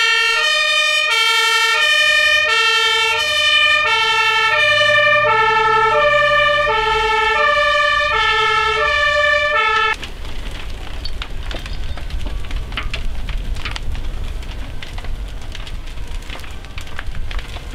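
A fire engine's two-tone siren, a low and a high note alternating about once a second. About ten seconds in it cuts off suddenly to the steady rush of a large fire, with frequent sharp crackles.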